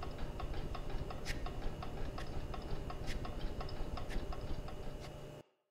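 A clock ticking: rapid light ticks with a sharper click about once a second, over a steady low hum. It cuts off abruptly near the end.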